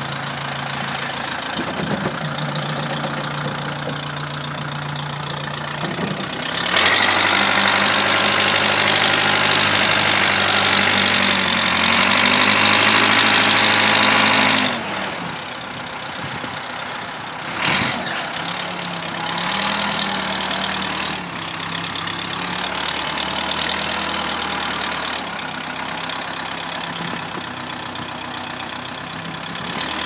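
Case 580 CK backhoe's engine running, speeding up and running harder from about seven seconds in for about eight seconds, then settling back to a lower, steady run.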